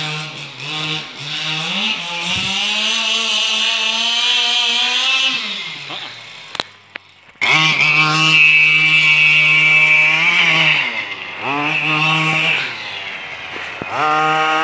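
Small petrol engine of a remote-control car buzzing at high revs, its pitch rising and falling as the throttle is worked. It drops almost out about six seconds in, then comes back suddenly at full revs, eases off and revs up twice more near the end.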